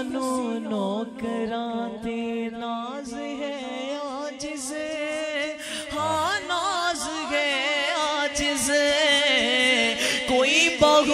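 A male voice sings a naat a cappella: a long melismatic passage with no words, sweeping up and down in ornaments over a steady held drone. About six seconds in, the singing grows louder and more ornamented.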